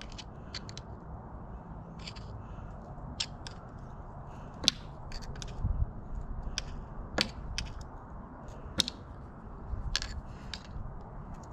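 Screwdriver tip scraping and prying at the metal remains of an old rear output seal in a transmission's aluminium tailhousing: short scratchy scrapes with sharp metal clicks every second or two.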